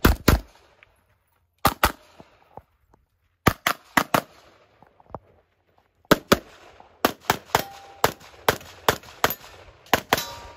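Handgun shots fired mostly in quick pairs during a timed stage run, some twenty shots in all, with short gaps where the shooter moves between positions and a denser run of pairs in the last few seconds.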